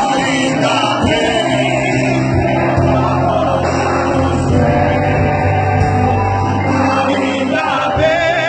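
Loud gospel worship music: a band playing with voices singing over it.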